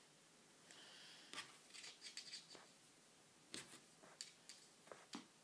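Faint scraping and ticking of a string sliding over a wooden floor as a cat bats at it with its paw, in two short flurries.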